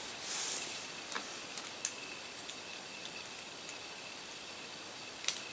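Small plastic Beyblade parts being handled, with scattered faint clicks and one sharper click near the end. A brief rustle comes right at the start.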